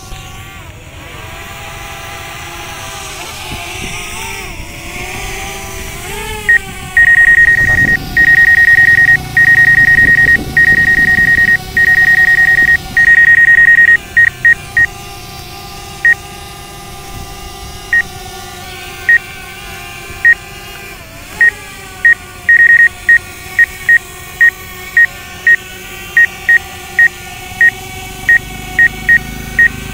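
Mavic Air drone propellers whining steadily, shifting in pitch now and then, under a loud high warning beep. The beep comes in long beeps from a few seconds in, then short beeps that come faster toward the end. It is the low-battery alarm, sounding as the modded battery's voltage sags low.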